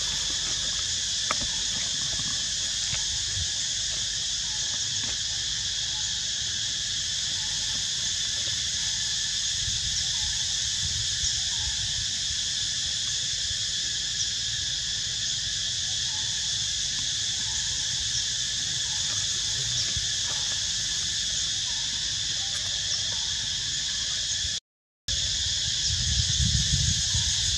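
Steady insect chorus in a forest, a continuous drone in several high pitches over a low rumble. It drops out completely for a moment near the end, and the low rumble is louder after that.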